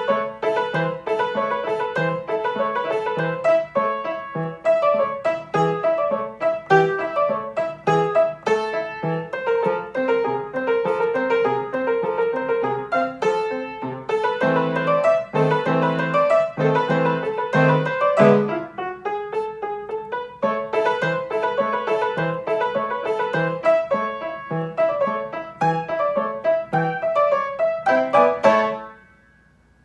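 Background piano music, quick runs of struck notes, that stops abruptly near the end.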